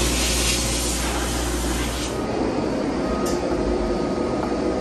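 Bead-blast cabinet at work on a rusty pinball lock bar: the blast gun's hiss of air and media stops about half a second in, leaving a steady lower rush of the running cabinet equipment, with a faint steady whine near the end.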